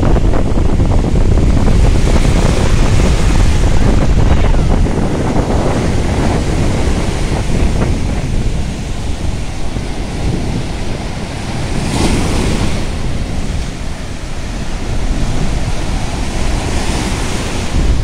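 Shallow-sea surf, choppy waves breaking and washing over a sandy shore, under heavy wind rumble on the microphone. A louder hiss of surf comes about twelve seconds in.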